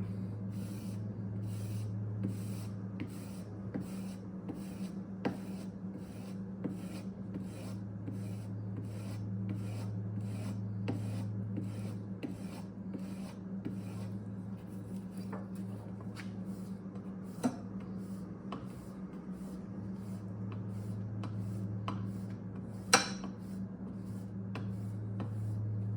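Plane blade being stropped on a strop charged with honing compound: steady back-and-forth rubbing strokes, a little under two a second, the last step of putting a keen edge on the iron. A sharp tap near the end.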